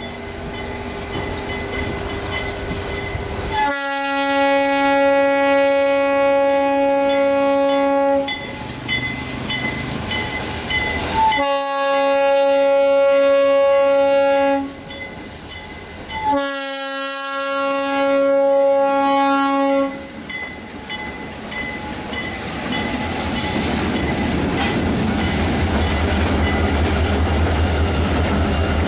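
Fouled Leslie locomotive horn sounding three blasts, the first the longest, with a sour, off-key tone. Afterwards the train's rumble builds steadily louder as it comes by.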